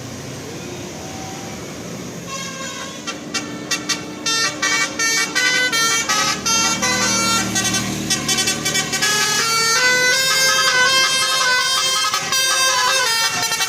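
Bus 'telolet' Basuri musical horn playing a fast tune of short, stepping notes, starting about two seconds in over the low running of the bus engine.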